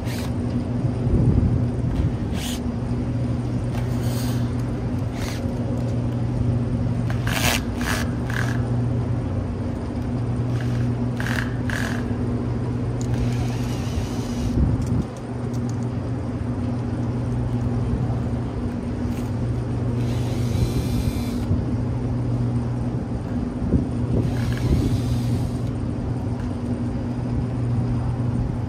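Steady machine hum of rooftop HVAC equipment. Over it, a cordless drill runs in three short spurts of about a second and a half each, backing off the fasteners that hold the old condenser fan motor to the fan guard, with sharp metallic clicks and clinks from the tool and the wire guard in between.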